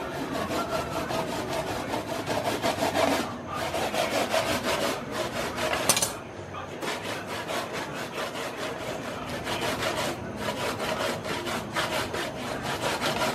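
Kitchen knife scraping raw fish flesh from the skin on a plastic cutting board, in quick repeated strokes with two short breaks. A sharp click of the knife on the board comes about halfway through.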